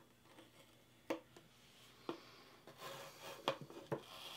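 A few faint, sharp clicks of a craft knife picking at the edge of painter's tape, then, from about three seconds in, the tape being peeled up off the painted wooden board with a faint scratchy peeling noise and more clicks.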